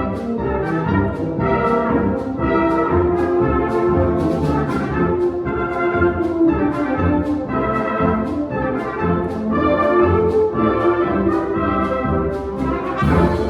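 Music led by brass instruments, playing sustained chords over a steady beat.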